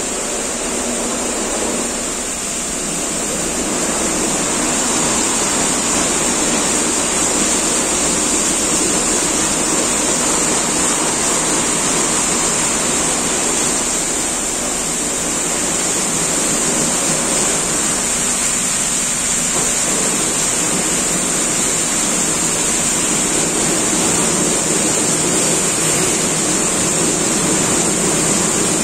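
Automatic gantry car wash running its wash cycle: a steady, loud hiss of water spray over the rumble of the machine working along the foamed car.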